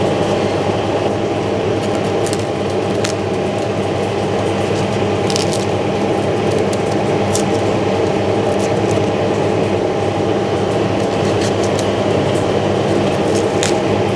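Chef's knife cutting through mushroom and raw cauliflower held in the hand, separating florets: a scattering of short crisp cuts and snaps. Under it runs a steady mechanical hum, the loudest thing throughout.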